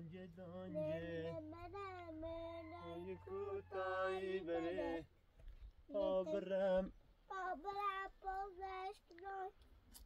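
A high voice, likely a child's, singing in drawn-out, wavering phrases, with short breaks about five and seven seconds in.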